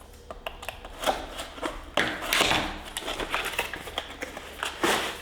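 Hands opening a package: rustling of wrapping with scattered taps and clicks, loudest about two seconds in and again near the end.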